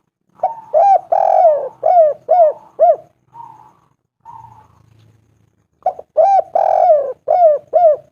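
Spotted dove cooing in two phrases, each a run of about six short rising-and-falling coo notes with a longer drawn-out note second in the run. The second phrase starts about six seconds in.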